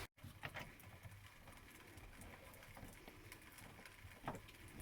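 Near silence: room tone with a few faint light clicks.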